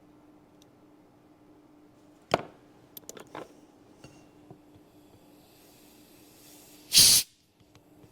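A short, loud rush of air blown at a circuit board near the end, clearing melted solder from the holes. Before it there is a sharp click, a few small ticks and a faint hiss, over a steady low hum.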